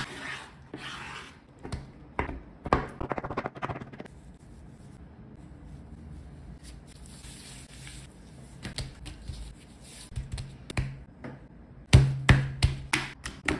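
Raw chicken breast fillets handled on a wooden cutting board: soft slaps and taps as the meat is laid out, a light hiss of seasoning sprinkled onto it about halfway through, and a few thumps near the end as gloved hands press the fillets down.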